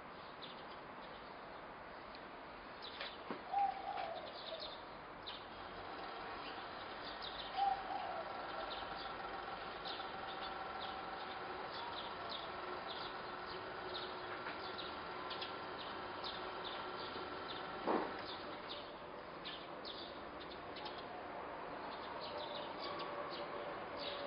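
Small birds chirping again and again, with a couple of lower, cooing calls in the first eight seconds and a faint steady tone underneath. A single sharp click about eighteen seconds in.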